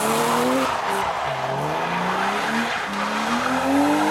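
BMW E36 coupe drifting on wet tarmac: the engine is held at high revs, its pitch dipping about a second in and then climbing steadily, while the spinning rear tyres skid and hiss.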